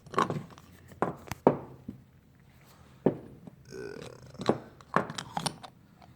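A series of sharp clicks and knocks from a deep-well socket being handled and fitted over an oil pressure sending unit, about seven in all, spaced unevenly, with a brief rattle near the middle.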